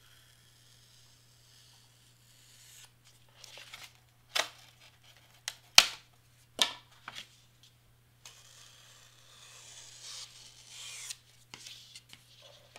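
Craft knife cutting through thick cardstock on a cutting mat: scratchy scraping strokes, plus several sharp paper snaps and clacks in the middle as the sheet is lifted and shifted, and another longer run of cutting near the end.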